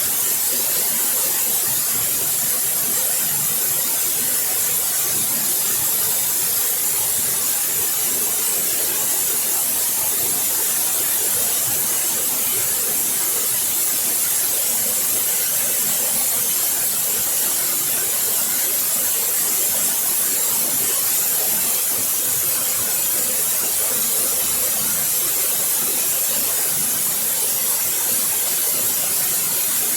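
Waterfall: water falling and splashing in a steady, even rush, with a hissing high end.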